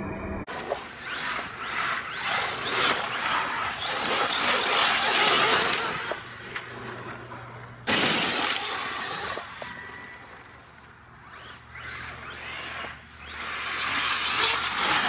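Arma Mojave EXB RC truck's brushless motor whining, its pitch sweeping up and down repeatedly with the throttle, over a rushing noise of the tyres tearing at the ground. The sound suddenly gets louder about eight seconds in, fades somewhat, then builds again near the end.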